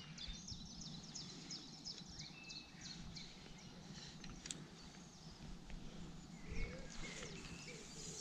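Faint outdoor birdsong: many short, high chirps and twitters from small birds over a steady low background hum.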